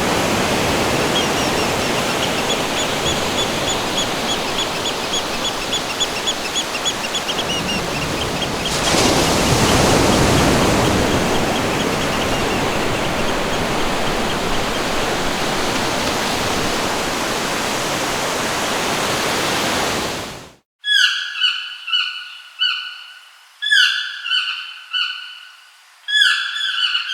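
Steady rushing water with a faint high bird trill over it, growing louder about nine seconds in. It cuts off abruptly near the end, and a bird's loud repeated calls follow, short falling notes in quick groups.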